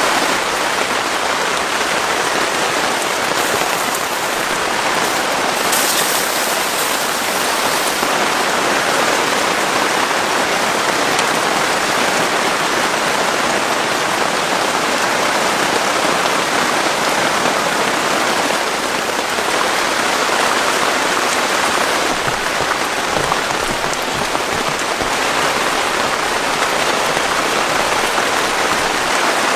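Heavy rain falling, a steady dense hiss that keeps up at the same strength throughout.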